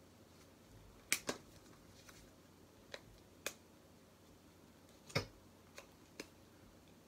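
Scattered sharp clicks and crackles of hands picking and pulling at a tightly packed parcel to get it open, about seven irregular snaps, the loudest about a second in and about five seconds in.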